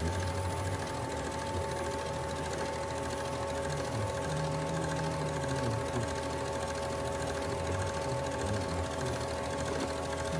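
Metal lathe running steadily with its chuck turning at about 200 RPM: an even hum with a couple of constant whining tones, and a lower wavering tone that comes and goes.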